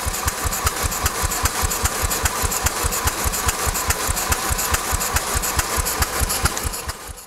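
Steam engine of a home-built steam motorcycle running steadily, its exhaust beating in an even rapid rhythm of about seven chuffs a second, fading out near the end.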